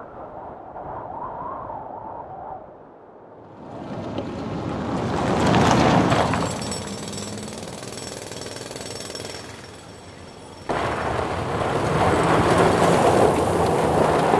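Rough, rattling machinery noise with a low steady hum underneath. It swells to a loud stretch about five seconds in, eases, then cuts in suddenly and loud again about ten and a half seconds in.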